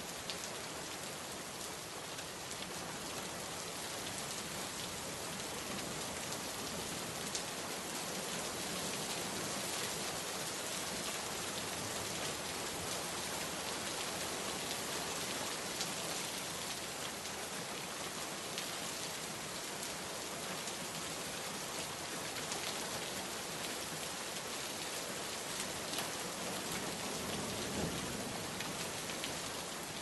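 Steady rain: an even hiss of many drops falling, with a few louder single splashes scattered through it.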